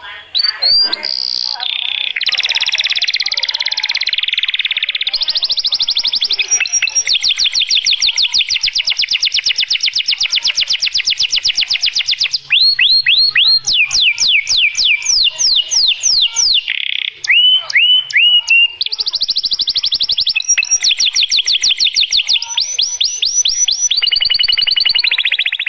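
Domestic canary singing a long, continuous, varied song of very fast trills and rolls. About halfway through comes a run of falling whistled notes that slows near its end before the fast trills return.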